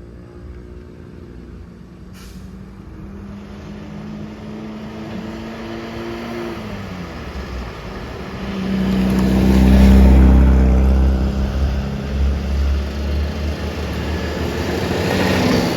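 Heavy truck engines straining up a steep climb. One truck's engine pitch drops about halfway through, then a loud low engine rumble builds as a truck passes close, loudest about two-thirds of the way through.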